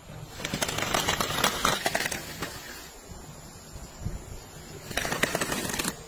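Folding camping wagon rattling and clicking over grass as it is pulled, in two bursts: one about two seconds long near the start, and a shorter one near the end.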